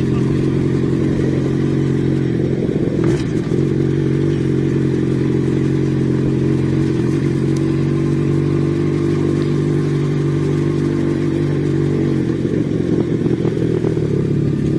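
Yamaha XJ6 motorcycle's inline-four engine running at a steady pitch while riding, with one brief knock about three seconds in.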